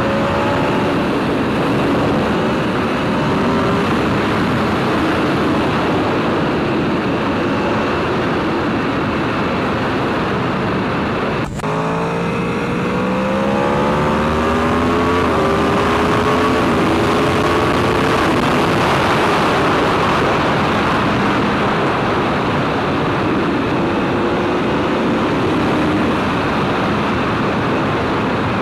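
Sport bike's engine pulling at road speed under heavy wind rush. About halfway through there is a short break in the sound with a click, then the engine note climbs as the bike accelerates.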